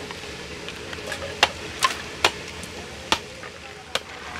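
Cow or buffalo horns knocked against an upright perforated tube to loosen and separate the bone core from the horn sheath: five sharp knocks, irregularly spaced from under half a second to about a second apart.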